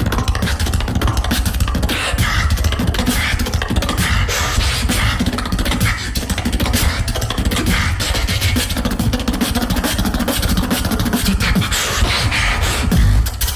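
Solo beatbox showcase: a continuous heavy vocal bass line under many quick percussive clicks and snares, all made with the mouth.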